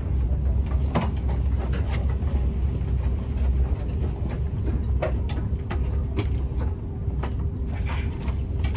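Steady low rumble inside a KTX high-speed train carriage, with a faint steady hum over it and scattered light clicks and knocks.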